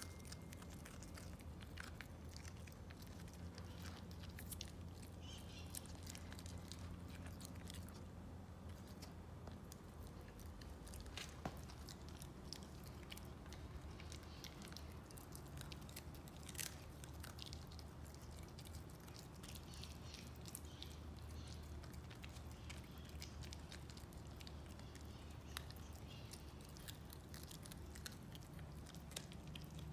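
Parson Russell Terrier puppy chewing a brussels sprout: faint, scattered crunches and clicks over a low, steady hum.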